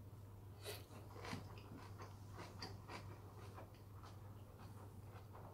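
Mouth chewing a big mouthful of boiled pork wrapped in kimchi (bossam): faint, irregular crunches and clicks, over a steady low hum.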